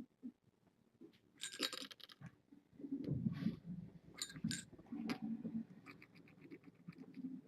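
Kittens scuffling and scratching about, with scattered light scratches and clicks, a few soft thumps, and a quick run of light ticks in the second half.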